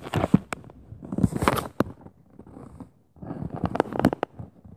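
Handling noise on the phone's microphone: three bouts of close rustling and crackling clicks as the phone is moved in the hand.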